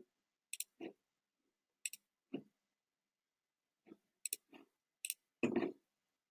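Faint computer mouse clicks: a handful of short sharp clicks with softer, duller knocks between them, and a slightly longer dull sound a little before the end.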